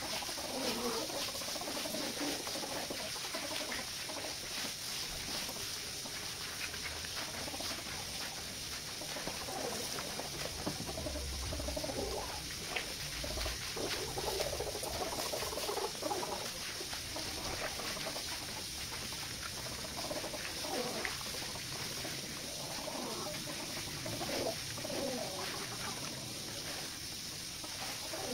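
A wet, soapy rug being scrubbed with a stiff hand brush: irregular brushing strokes over a steady watery hiss.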